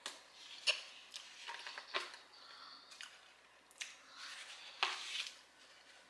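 Close chewing of a bite of toasted keto bread topped with avocado and scrambled eggs: scattered crisp crackles and wet clicks about once a second.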